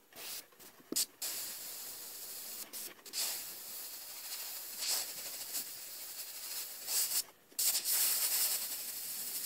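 Airbrush spraying paint onto a wooden popper lure, a hiss of air and paint. A few short spurts open it, then it sprays almost steadily with a couple of brief pauses.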